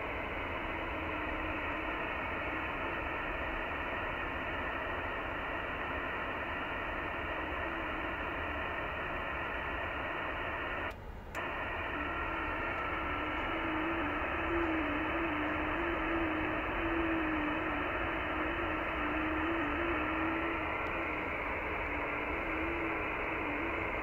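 Icom IC-7600 shortwave transceiver audio on the 15 m band: a steady hiss of band noise cut off at the receiver's 3 kHz passband, with a low FT8 digital signal warbling as it steps between tones. This signal is VP6R on Pitcairn Island, sitting at about 300 Hz audio offset. The audio drops out briefly about 11 seconds in.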